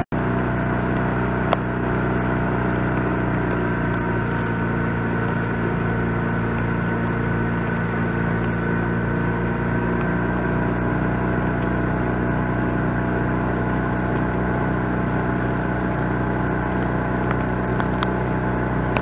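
Motorboat engine running steadily at a constant speed, an even drone that does not change pitch. There is a single brief click about one and a half seconds in.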